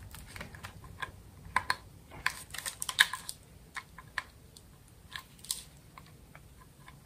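Irregular small plastic clicks and rattles of a wiring-harness plug being handled and fitted into the back of a plastic tachometer gauge, busiest in the first half, the loudest click about three seconds in.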